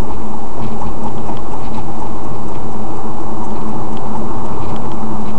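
Loud, unbroken road and engine noise inside a moving car, with a steady hum and scattered crackling ticks over it.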